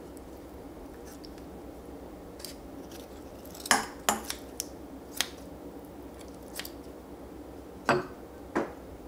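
Eating utensils clicking and clinking against a bowl and each other: about nine short, sharp clicks scattered over several seconds, the loudest near the middle and near the end, over a steady low hum.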